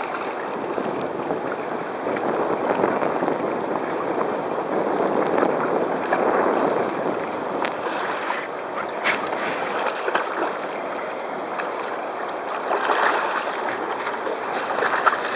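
Seawater churning and sloshing against a small boat, with a few brief sharper splashes.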